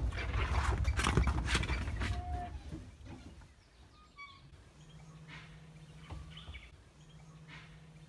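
Open safari jeep's low rumble and rattling dying away as the vehicle slows and stops about three seconds in. After that, birds give short scattered chirps in the forest over a faint steady low hum.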